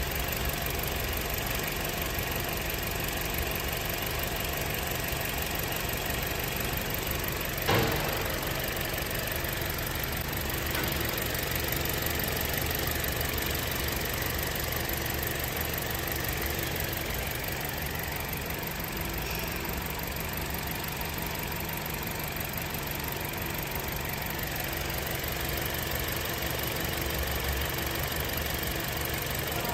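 Toyota Corolla's four-cylinder ZR-series engine idling steadily, the idle whose shaking the uploader ties to dirty or clogged fuel injectors. A single sharp click about eight seconds in.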